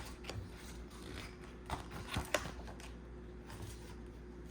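Quiet room tone with a low steady hum, broken by a few soft clicks and rustles of handling near the middle.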